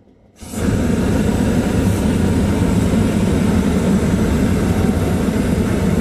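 Hot air balloon's propane burner firing overhead in one long, loud, steady blast that starts abruptly about half a second in, heating the air in the envelope.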